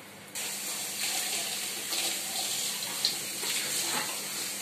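Kitchen tap running into a steel sink, turned on about half a second in and then flowing steadily, with one short clink of a utensil near the middle.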